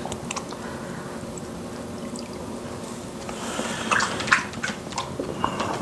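Hands being washed in water in a clear plastic container, with water trickling and sloshing. A few sharper splashes come about four seconds in.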